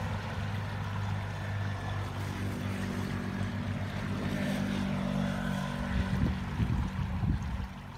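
A passing vehicle's steady engine hum fades out near the end, over the constant rush of muddy floodwater. Near the end a few gusts of wind buffet the microphone.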